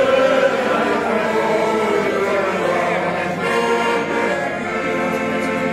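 A piano accordion playing a tune, with long held notes and chords.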